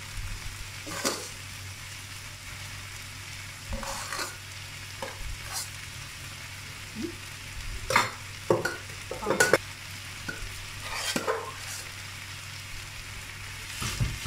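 Rice and egg frying in a wok with a steady sizzle while a spatula presses and breaks up the rice, scraping and tapping against the pan every second or two, busiest around the middle.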